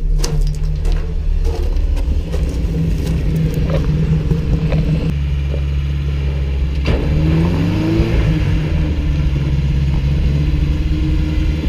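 Lifted Toyota pickup's engine running at low revs as the truck crawls up onto concrete pipes, with a low steady rumble and a couple of short rising revs about seven to eight seconds in.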